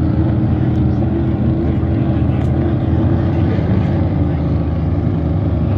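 Racing powerboat engine running flat out across the water: a loud, steady drone with a strong low hum.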